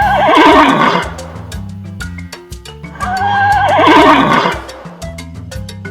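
Horse whinnying twice, each a long quavering neigh that falls in pitch, the second about three seconds in, over background music with a steady beat.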